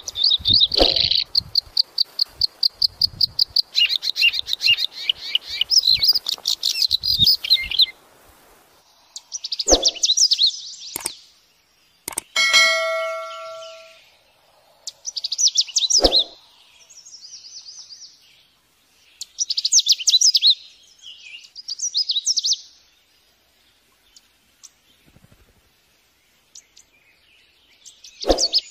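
Birds chirping and trilling in short bursts, with a fast, even trill in the first few seconds. A single bell-like ding rings out about twelve seconds in.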